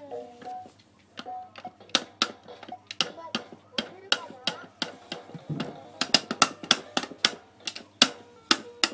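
An Anpanman battery toy piano being slapped and pressed by a baby's hand: a string of sharp, irregular plastic clicks, a few a second, with brief electronic notes from the toy.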